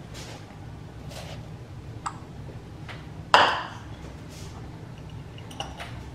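Glass and metal kitchenware clinking on a countertop: one sharp ringing clink a little over three seconds in, with a lighter clink before it and a few small taps near the end.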